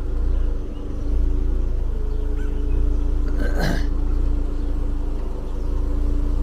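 Car running at low speed, a steady low engine and road rumble with a constant hum. A brief sweeping sound passes about three and a half seconds in.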